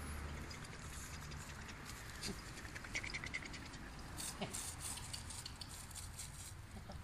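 Golden retriever puppies scampering and scuffling: a scatter of light clicks and rustles from paws and claws on brick paving and a blanket, with a brief high squeak about three seconds in.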